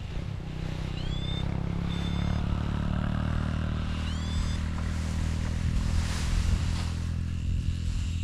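A motor engine running steadily: its hum builds over the first few seconds and fades near the end. A few short rising chirps sound over it.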